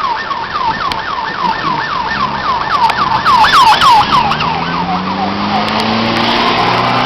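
Emergency-vehicle siren in a fast yelp, its pitch sweeping up and down about three to four times a second, fading away after about four seconds. Wind and rain noise continue under it, and a low steady hum comes in during the second half.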